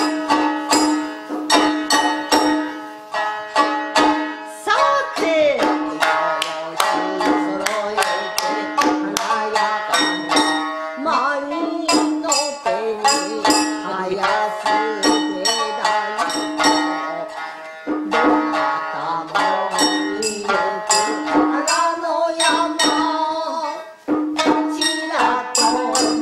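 Shamisen plucked in quick, crisp strokes accompanying a singer in a traditional Japanese ozashiki dance song, with a short break in the music near the end.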